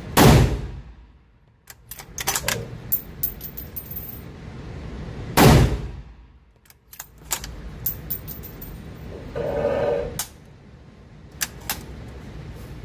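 Two shots from a Ruger American .308 bolt-action rifle, about five and a half seconds apart, each ringing out in an indoor range, with metallic clicks and clacks of the bolt being worked between and after them.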